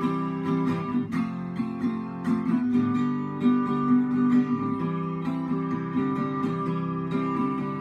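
Acoustic guitar strummed in a steady rhythm, ringing chords with no singing over them.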